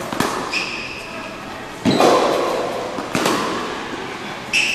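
Tennis ball rally on an indoor hard court: four sharp pops of the ball off the racket strings and the court, about one every second and a half, echoing in the hall. Two short high squeaks of shoes on the court come in between.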